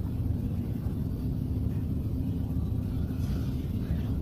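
Steady low rumble of an underground railway station's background noise, with no distinct events standing out.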